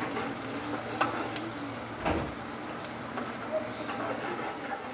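Sliced onions sizzling in hot oil in an aluminium kadai, stirred with a spatula that scrapes and taps against the pan a few times.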